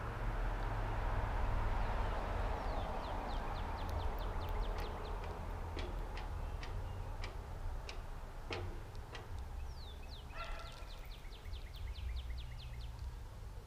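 Small songbirds at a feeder calling: rapid runs of short, high, downward-sliding notes, twice, with a few single sharp chips between them. A steady low rumble underlies them.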